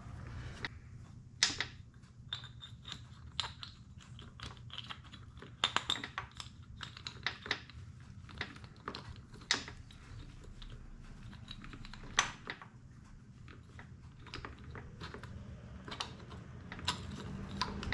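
Irregular light metallic clicks and taps as a two-stroke piston and its wrist pin are handled and slid onto the connecting rod, with a few sharper clicks among them, over a low steady hum.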